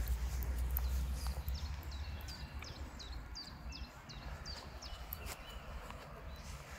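An animal gives a run of about ten short, high, falling chirps over a few seconds, after a low rumble in the first second or so.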